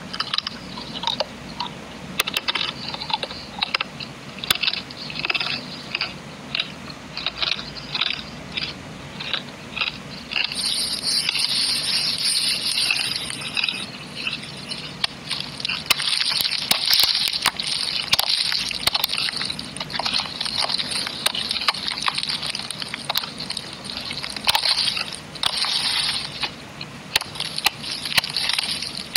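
Chunks of dry multani mitti (fuller's earth) clay crunching and crumbling. At first it comes as a run of separate crisp crunches; from about ten seconds it becomes a dense, continuous crackling hiss.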